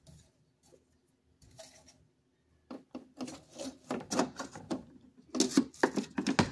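Replacement HEPA filter being pushed and shuffled into a plastic air purifier housing. Irregular scrapes, rubs and knocks start about three seconds in and are loudest near the end.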